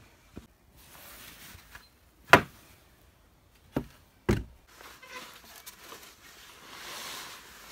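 Wooden boards knocking as they are handled and set against a pallet-wood table frame: three sharp knocks at uneven intervals, the loudest about two seconds in, followed by a faint hiss.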